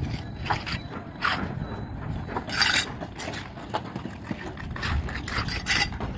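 Brick-laying work: trowels scraping mortar and knocking on bricks in a series of short, irregular scrapes and taps, the loudest scrape about two and a half seconds in.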